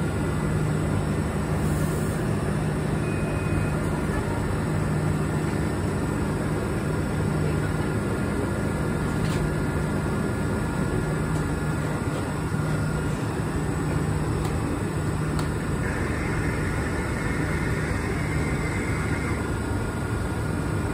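Stationary Class 377 Electrostar electric multiple unit humming steadily at the platform, with a strong low steady tone under an even background noise.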